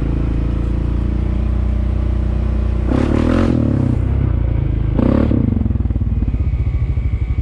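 Honda ATV's single-cylinder engine running steadily as the quad rides along a sandy trail, with two short bursts of rushing noise about three and five seconds in. Near the end the engine note starts to pulse.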